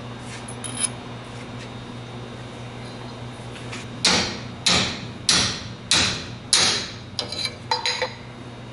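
Hammer blows on a steel pipe used as a driver, seating the heat-shrunk bearing adapter ring onto a 1956 Ford F100 front spindle as a press fit: a few faint metal clinks first, then five hard strikes a little over half a second apart about four seconds in, followed by several lighter taps.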